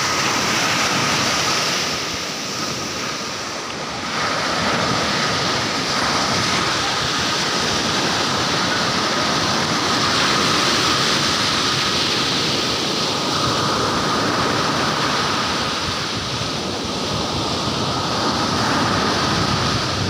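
Surf breaking and washing up a sandy beach, a steady rushing wash of waves with a slight lull about two seconds in.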